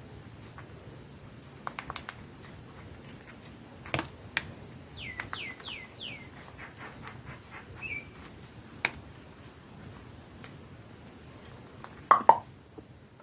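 Ringneck parrot giving four quick chirps in a row, each falling in pitch, about five seconds in, then a short chirp, among scattered sharp clicks. A louder burst comes near the end.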